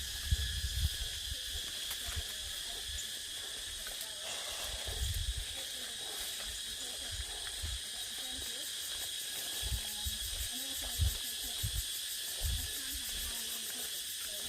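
A steady chorus of tropical forest insects, with shrill even tones high up, joined by a faster pulsing buzz near the end. Scattered low thuds come under it throughout.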